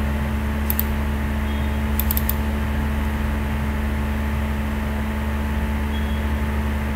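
Steady low hum from the recording setup, with computer mouse clicks about a second in and a quick run of clicks around two seconds in.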